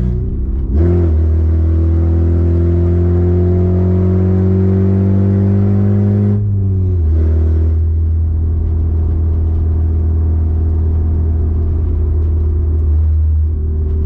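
Honda Civic four-cylinder engine breathing through Skunk2 Alpha Series headers, heard from inside the cabin. About a second in, the engine note comes up sharply and climbs steadily in pitch under acceleration. It drops away around six and a half seconds in, then holds a steady, lower drone at light throttle.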